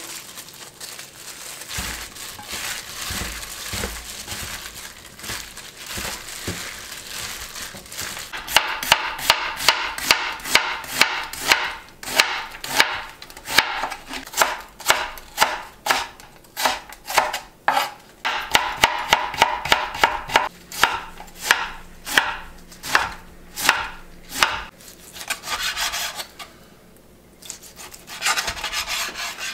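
Soft rustling of garlic scapes being tossed in their seasoning in a steel bowl. About eight seconds in it gives way to a kitchen knife slicing onion and then raw pork on a wooden cutting board, in steady strokes about two a second, with a short pause near the end.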